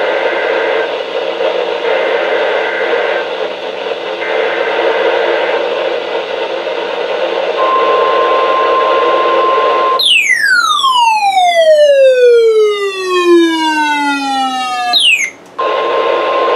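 NOAA Weather Radio broadcast over a weather-radio speaker, with radio hiss and three short warbling two-tone data bursts: the SAME header of an emergency-alert test. A steady alert tone near 1 kHz follows, broken about ten seconds in by a loud falling whistle-like glide with overtones that lasts about five seconds and stops abruptly, after which the tone resumes.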